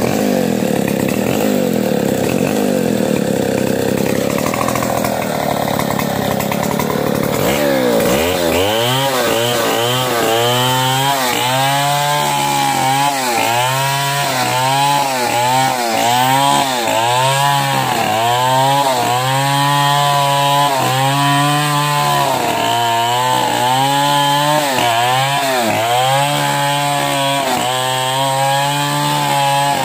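Large two-stroke chainsaw felling a mindri tree. It runs steadily at first, then from about eight seconds in it cuts into the base of the trunk, the engine pitch dipping under load and recovering about once a second as the bar is rocked through the wood.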